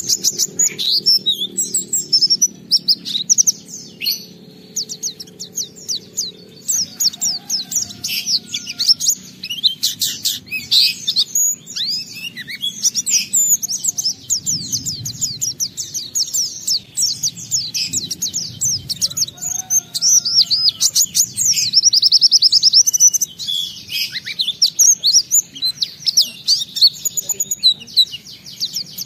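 White-eye (pleci) in full song: an unbroken stream of fast, high chirps and twittering trills packed with varied phrases, with one loud rapid trill about two-thirds of the way through.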